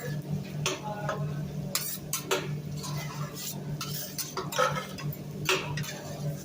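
Metal spatulas scraping and clanking on a teppanyaki griddle as food is stirred and turned, with a light sizzle. A steady low hum runs underneath.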